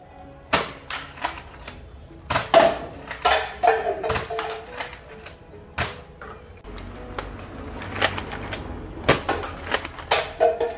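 Nerf Elite Rough Cut 2x4 pump-action foam-dart blaster being fired: a series of irregularly spaced sharp plastic clacks from its slide and shots, with some faint music underneath.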